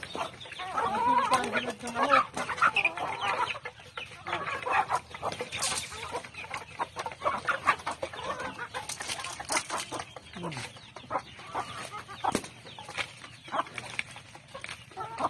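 A flock of chickens clucking while they feed, with short calls in the first few seconds and many brief clicks and rustles among them.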